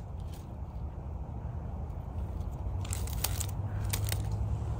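Dry leaves and gravel crackling underfoot, a few short crunches about three and four seconds in, over a steady low rumble.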